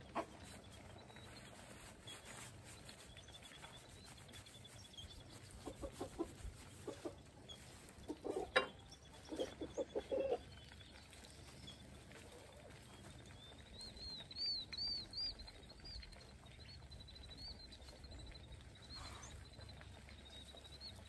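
Chickens clucking in short runs of pulses about six to ten seconds in, over a faint steady rumble of road traffic. A run of high, warbling chirps follows about two-thirds of the way through.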